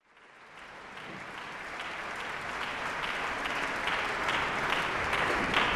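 A large audience applauding in a hall. The applause fades in from silence and grows steadily louder.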